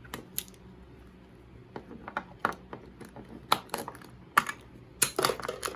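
Scattered sharp clicks and taps of small plastic toy pieces and packaging being handled, with a quick flurry of clicks near the end.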